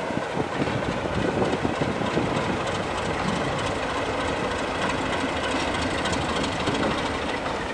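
Class 33 diesel locomotive, its Sulzer eight-cylinder engine running steadily as it moves slowly past on its own, with light wheel noise on the rails. The sound eases slightly near the end as it draws away.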